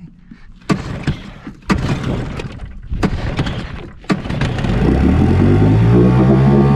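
Old Yamaha outboard motor being pull-started: several sharp cracks as it coughs on the pulls, then nearly five seconds in it catches and runs, its pitch rising and then levelling off.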